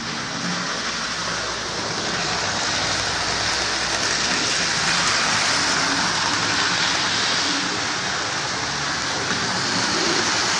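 Model railway trains running on the layout's track: a steady whirring hiss from the small electric motors and wheels on the rails, growing a little louder a few seconds in.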